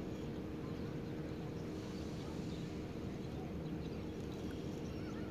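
A steady low motor hum that does not change, with faint short chirps above it.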